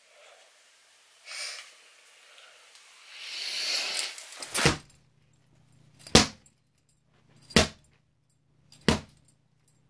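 Belt lashes: four sharp cracks of a belt striking, spaced about a second and a half apart, starting about halfway in.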